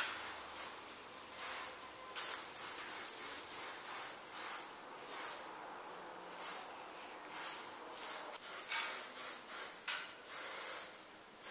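Aerosol spray paint can hissing in a long run of short bursts, about one a second or faster, as beige paint is sprayed on a wall.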